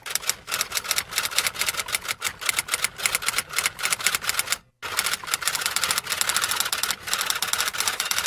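Rapid typing: a fast, uneven run of key clicks, stopping briefly a little past halfway, then carrying on.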